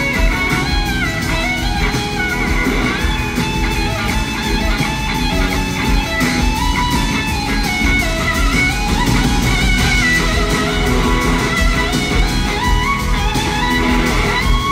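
Electric slide guitar solo on a Gibson SG, the lead line gliding and stepping between sustained notes over the full band.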